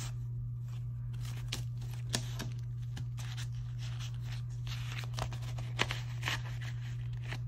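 Paper dollar bills rustling and a clear plastic binder pocket crinkling as cash is counted and slid into it, with scattered light clicks and snaps. A steady low hum runs underneath.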